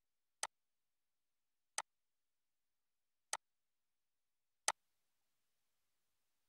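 Four single, sharp computer mouse clicks, spaced about a second and a half apart, with nothing else between them.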